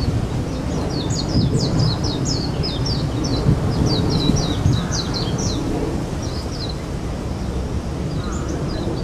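A small bird calling in a fast run of short, high chirps for about five seconds, then a few scattered chirps, over a steady low rumble.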